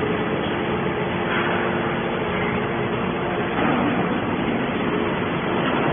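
Scrap metal baler running: a steady machine noise with a faint, even hum.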